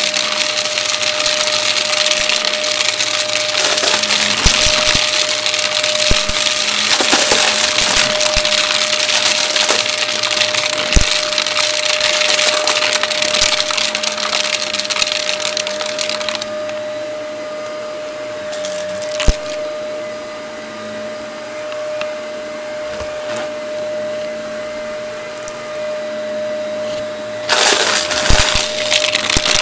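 Upright vacuum cleaner running with a steady motor whine and rushing air, while coins and small debris clatter and crackle as they are sucked up. The rushing air drops off for about ten seconds from just past the middle, then comes back loud with more clattering near the end.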